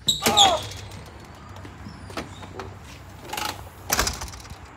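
A door opening with a short squeak at the start, followed by scattered knocks and handling noise, with a louder thump about four seconds in.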